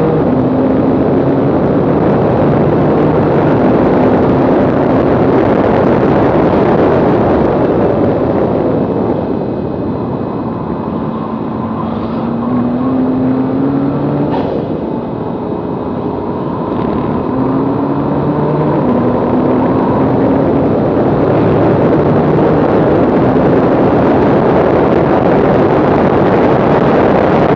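Tuned Nissan GT-R's twin-turbo V6 at full throttle on track, its pitch climbing and dropping back again and again as it shifts up through the gears, under heavy wind and tyre roar from a camera mounted low outside the car. Midway it eases off for a corner, with a few sharp clicks, then climbs through the gears again.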